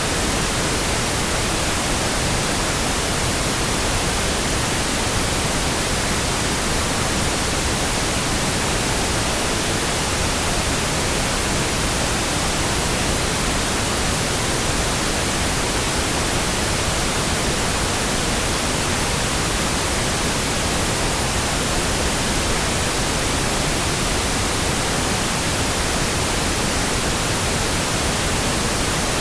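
Steady, unchanging pink noise: a continuous full hiss with no breaks, swells or other sounds.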